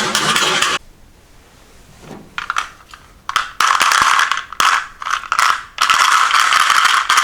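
Marbles rolling and clattering down a toy marble run. A continuous rattling run stops under a second in, followed by a quiet gap, then scattered clacks and short rolls, and a steady rolling rattle again near the end.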